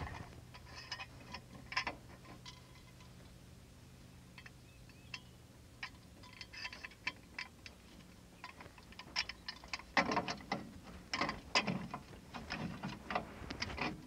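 Metal ratcheting axle stand being set under a car's axle: its notched centre post is pulled up, so the pawl clicks over the teeth, with metal knocks. The clicks come scattered at first and grow into a quicker, louder run of clicks and knocks from about ten seconds in.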